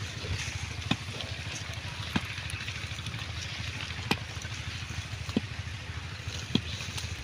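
Black pigs grazing at close range: steady munching and rustling in the grass, with a sharp click about every second or so.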